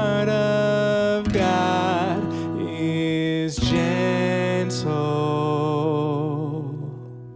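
A man singing a slow worship song while strumming an acoustic guitar. He holds the last sung note, and voice and guitar fade out near the end.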